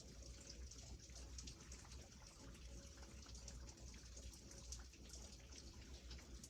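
Faint steady rain: an even hiss full of small drop ticks over a low rumble.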